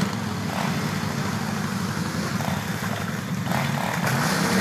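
Quad bike (ATV) engine running as it drives through deep mud toward the listener, growing louder near the end as it ploughs into water, with water splashing and rushing over the engine note.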